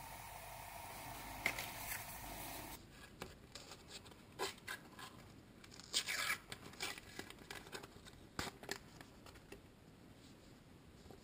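Faint rustling and crinkling of a foil sticker packet being picked at and torn open, with small clicks of paper stickers being handled, and a short louder rip about six seconds in.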